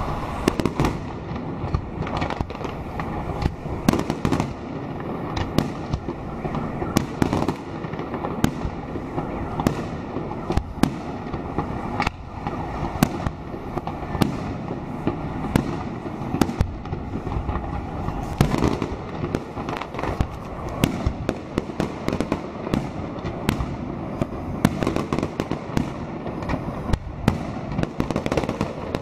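Fireworks display: shells bursting overhead in a dense, continuous run of sharp bangs and crackles, several a second.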